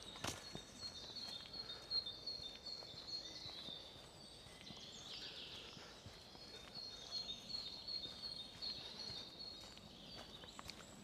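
A songbird singing: two long strings of quickly repeated high, clear notes, the second starting after a short pause. A few soft knocks sound near the start and near the end.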